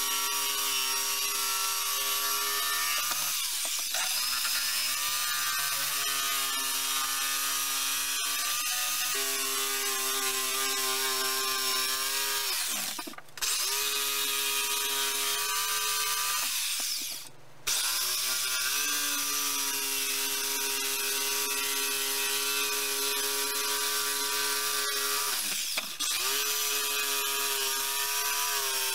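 Corded electric jigsaw cutting a curve through a softwood board: a steady motor whine with blade rattle. The pitch sags under load a few times, and the saw stops briefly twice, about halfway through and again a few seconds later.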